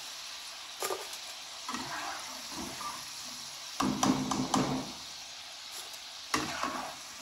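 Cubed potatoes frying in hot oil with a steady sizzle, while a perforated steel skimmer scrapes and clinks against the pan as the fried pieces are lifted out, loudest about four seconds in.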